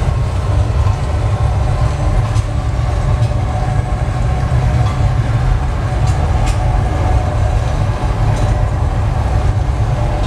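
Steady low rumble of a moving vehicle heard from inside its cabin, with a few faint rattles and clicks.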